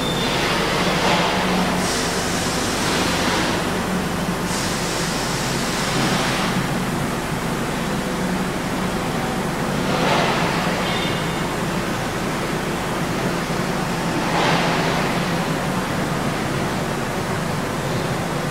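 CLOOS ROMAT 350 welding robot cell running: a steady machine hum with four bursts of hissing, two longer ones in the first seconds and two shorter ones later.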